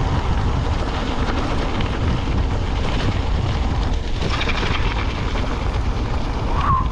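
Wind rushing over the microphone while riding a bicycle: a steady low rumble. A brief high chirp sounds near the end.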